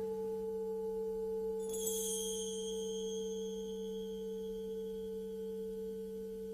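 Background music: a steady drone of pure low tones, with a high ringing tone that enters near two seconds in and slowly fades.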